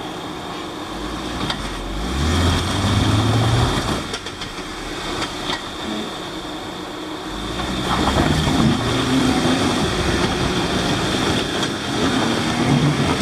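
Jeep Wrangler JK engine revving under load as it tries to crawl up a rock ledge, in two pushes: the note rises from about a second in and drops near four seconds, then climbs again from about seven and a half seconds.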